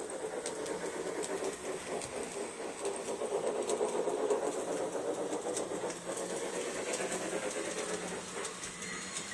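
Hartland large-scale model of the Disneyland Railroad locomotive Ernest S. Marsh running on its track, a steady mechanical rattle of motor and wheels that grows louder around the middle as the train passes close.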